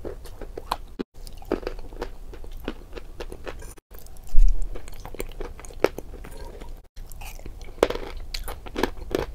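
Close-up chewing and crunching of hard, crunchy food eaten from a bowl with a fork, as ASMR eating sounds, with sharp crackling bites. A loud low thump comes about halfway through, and the sound cuts out briefly a few times.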